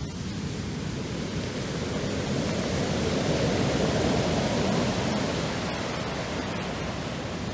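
Black Sea surf: a wave breaking and washing up the shore in a steady rush that swells to a peak about three to five seconds in and then eases.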